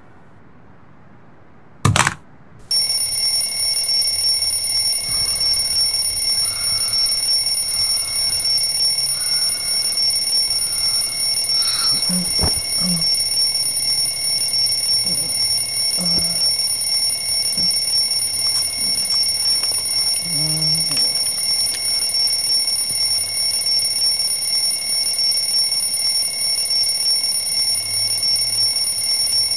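Twin-bell alarm clock ringing: after a quiet start, a short burst about two seconds in, then steady, unbroken ringing from just under three seconds on.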